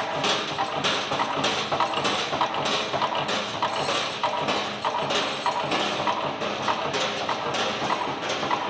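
Automatic steel wire nail making machines running, a steady metallic clatter with a regular knock about twice a second as the machine cuts and heads the wire into nails.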